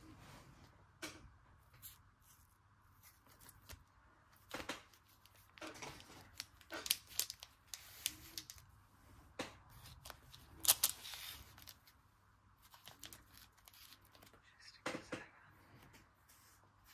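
Foil Pokémon booster pack wrappers crinkling and rustling as sealed packs are handled and stacked, in short irregular rustles and clicks.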